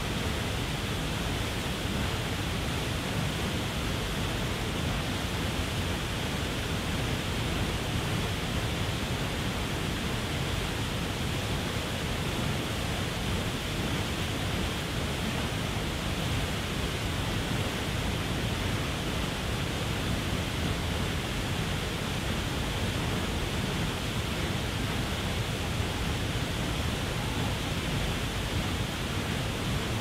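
Waterfall pouring steadily: a constant, unchanging rush of falling water.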